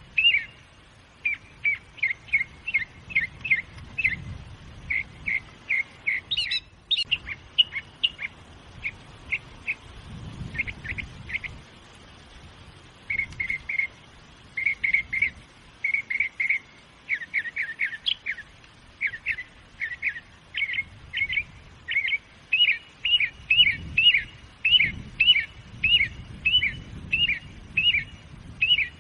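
A songbird chirping: short, clear notes repeated about three times a second in long runs, with a short pause near the middle.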